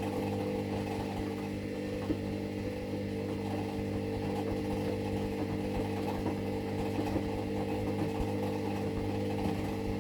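Steady, unidentified creaking drone: a continuous low hum made of several held tones, with faint irregular ticks on top.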